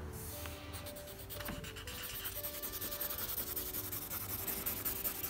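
Quick scribbling strokes of colouring tools rubbing on a paper colouring page, two hands shading at once, with background music playing underneath.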